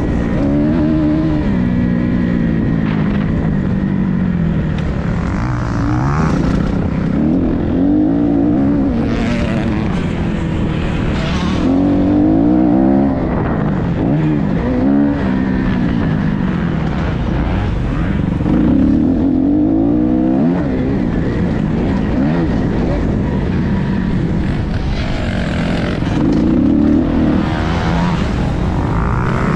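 Motocross bike engine being ridden hard, its revs climbing and dropping again every couple of seconds as the throttle opens and shuts, over a steady low rumble.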